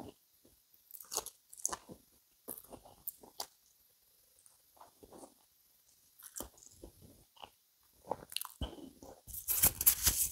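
A person chewing a piece of sausage, wet mouth sounds coming in short irregular bursts, with a louder, longer noise about nine seconds in.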